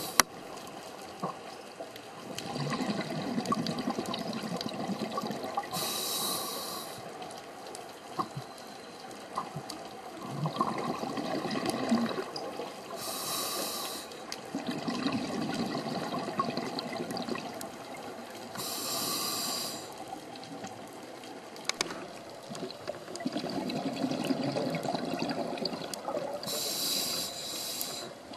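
Scuba diver breathing underwater through a regulator: four short hisses of inhaling, several seconds apart, each followed by a longer, lower rush of exhaled bubbles.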